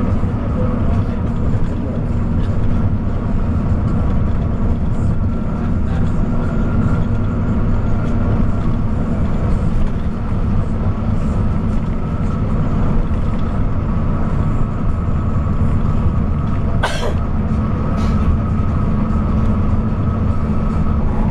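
Steady low rumble of a coach running at highway speed, with a constant hum over it. A sharp click comes about seventeen seconds in and a fainter one a second later.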